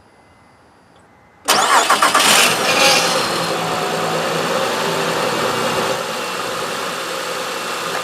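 Car engine started: the starter cranks for under a second (883 ms), beginning about a second and a half in, and the engine catches and settles into a steady idle. The quick start, with the battery holding 9.9 V while cranking, shows normal starting ability.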